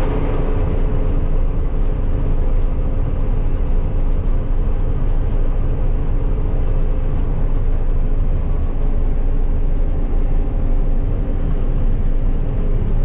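Combine harvester running steadily during soybean harvest: an even engine drone over a low rumble, with no change in speed.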